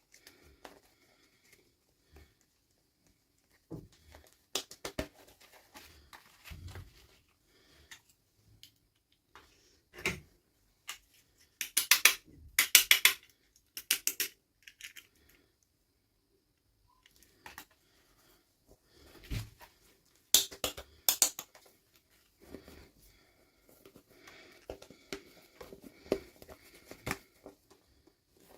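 Hands handling toy packaging and small plastic pieces: scattered clicks and taps, with several short, loud bursts of rustling near the middle.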